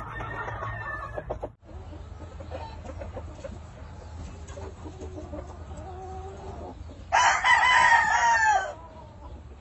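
Game rooster crowing once about seven seconds in, a single call of about a second and a half that falls in pitch at its end. Before it, softer clucking calls.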